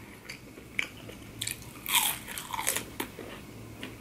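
Biting and chewing a crisp breaded chicken nugget: a run of crunches, thickest and loudest about two seconds in.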